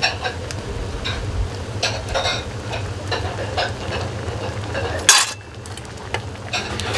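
A metal ladle stirring and clinking against a metal pot of udon simmering in broth on a gas burner, many short clinks and scrapes over a steady low rumble. About five seconds in comes a brief, loud rush of noise.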